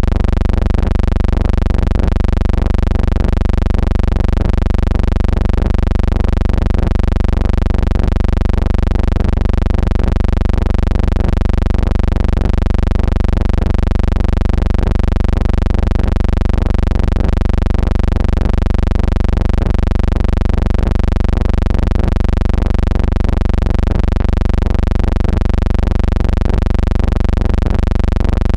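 A loud, steady buzzing hum with many evenly spaced overtones.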